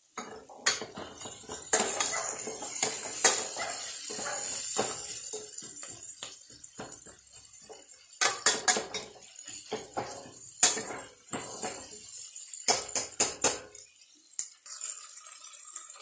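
Steel ladle stirring whole small onions in a metal pressure cooker, scraping and clinking against the pot, with clusters of sharp knocks.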